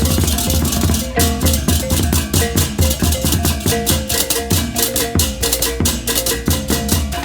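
Balinese baleganjur gamelan playing: a large section of ceng-ceng hand cymbals clashing in fast interlocking strokes over reyong gong-chime notes, kendang drums and low gongs. About a second in, the continuous cymbal wash breaks into distinct rapid, evenly spaced strokes.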